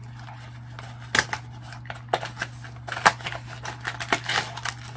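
Cardboard cookie box being opened by hand: a string of irregular sharp clicks and crackles of card tearing and the end flap being pried open, starting about a second in.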